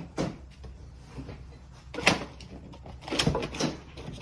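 A few separate knocks and clunks of objects being handled and set down, the loudest about two seconds in and two more close together near the end.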